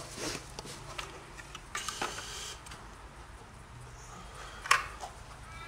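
Light plastic clicks and handling noise as a snorkel tube is fitted onto the top of a full-face snorkel mask, with the sharpest click near the end.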